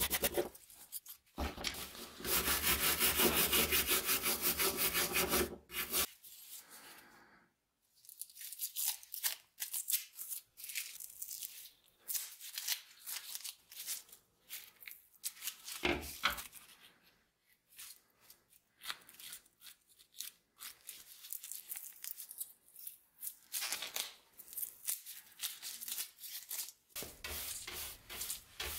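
A stiff hand brush scrubbing rust off steel pruning shears: fast, steady rasping for the first several seconds. This gives way to scattered crinkling and tearing as old clear tape is peeled off the handle, and a brush sweeps across the board near the end.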